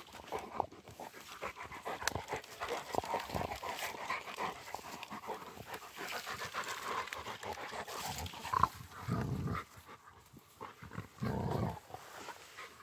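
Two Rottweilers panting while chewing and tugging at a dry birch branch, with dense crackling of wood and rustling of grass. Near the end come two short low growls about two seconds apart.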